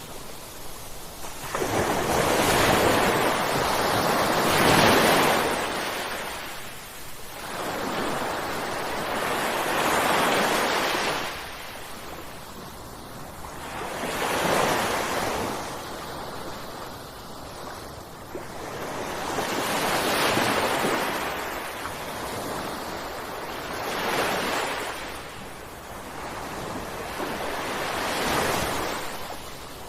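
Ocean waves crashing in a slow succession, about six in turn, each surge of surf rising and then falling away over a few seconds.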